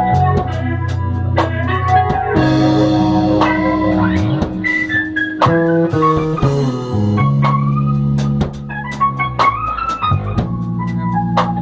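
Live band music: an electric bass soloing with held low notes, over a drum kit and organ.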